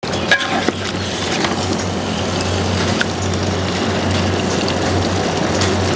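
Steady roar and hum of a stove burner under a large pot of boti curry at the boil, with a few small pops and clicks.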